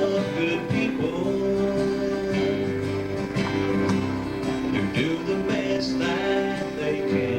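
Live country gospel band playing an instrumental passage led by acoustic guitar, with steady sustained chords.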